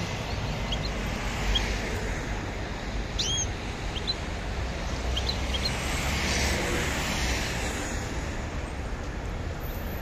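Short, high chirps of caged songbirds, scattered through the first half, over a steady low rumble of traffic.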